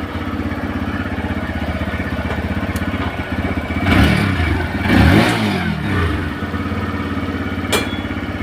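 TVS Raider motorcycle's single-cylinder engine idling steadily, revved up and back down twice around the middle, during a timing-chain noise test. A sharp click near the end.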